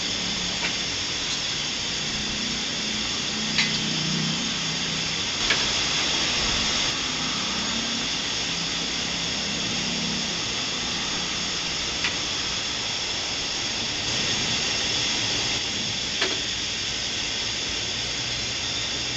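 Steady hiss of a cooker and a pot of boiling liquid, with a few light clinks of a ladle as hot pickling syrup is spooned into a glass jar of cucumber spears.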